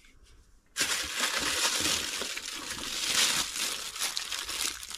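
Clear plastic bags holding cables and accessories crinkling as they are handled. The crackle starts suddenly about a second in and goes on as a dense, continuous rustle.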